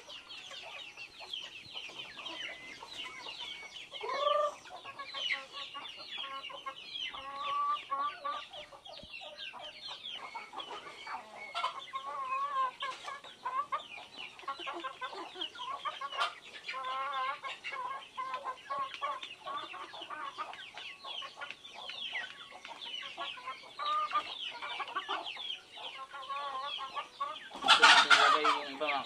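A flock of native chickens clucking steadily while they feed, with many quick high calls over the clucking. A louder burst comes near the end.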